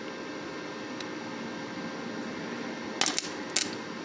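A 120-volt wire-feed welder hums steadily as it runs. About three seconds in, the arc strikes twice in short crackling bursts as the welding wire touches a bolt on the cast-iron brake caliper. The arc does not hold, which the welder blames on a poor ground connection to the corroded caliper.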